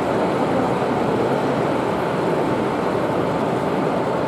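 Model diesel locomotive and freight train running along a layout, a steady drone under the continuous background noise of an exhibition hall.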